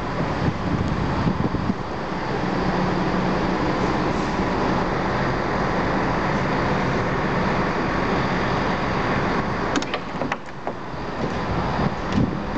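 High Speed Train's diesel power car engine running steadily with the train standing at the platform, a constant low hum under even mechanical noise. A few sharp clicks come about ten seconds in and again near the end.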